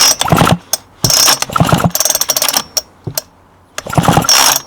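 Two-stroke chainsaw's recoil starter pulled four times in quick succession, the cord rattling out and the engine spinning over freely with its spark plug out, with a quiet gap of about a second before the last pull. The ignition is being tested, and the plug is sparking.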